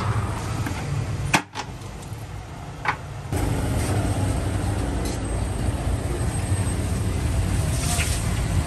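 A steady low background rumble with a few sharp clicks and knocks; the rumble drops away briefly and then comes back louder, abruptly, about three seconds in.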